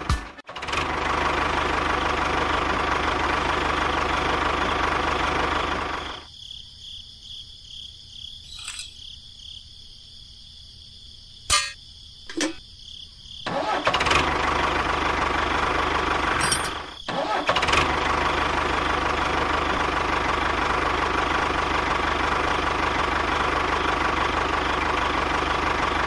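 A motor runs steadily. About six seconds in it drops away for roughly seven seconds, with a couple of sharp clicks in the lull, then comes back and cuts out briefly once more.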